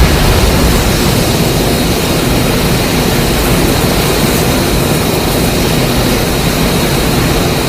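Mechagodzilla sound effect from the 2021 Monsterverse film: a loud, dense, steady rushing noise with a thin steady high whine through it, loudest at the very start.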